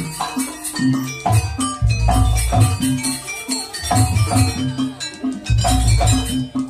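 Live music from a traditional East Javanese jaranan/gandrung ensemble: hand drums with deep booming strokes and struck metal gong-chimes playing a quick repeating pattern.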